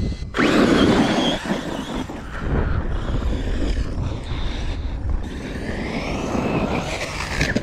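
Traxxas Sledge RC truck driven off hard across loose dirt: its brushless electric motor whines, rising and falling in pitch with the throttle, over the noise of the tyres on the dirt. It starts suddenly about a third of a second in and cuts off just before the end.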